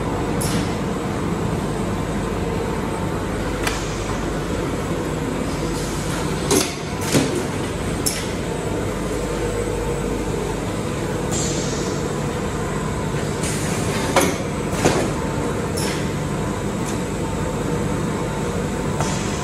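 Candy-factory machinery, a dough mixer among it, running with a steady mechanical hum and a few constant whining tones. Two pairs of sharp metal clanks break through, about a third of the way in and again about three quarters through.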